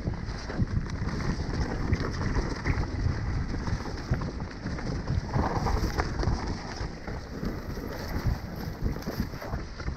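Mountain bike descending fast on a wet, leaf-covered dirt trail: tyres rumbling and the bike rattling over bumps, with wind rushing on the camera microphone.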